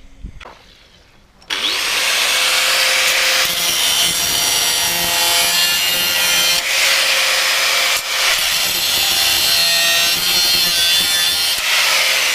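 A power tool cutting, starting abruptly about a second and a half in and running on with a steady whine over a harsh, gritty noise, with two brief dips in the middle.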